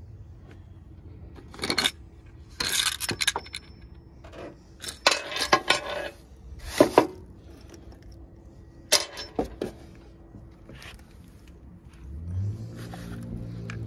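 Metal clinks, knocks and short scrapes of a removed throttle body being handled and set down, in scattered bursts. Low steady background music fades in near the end.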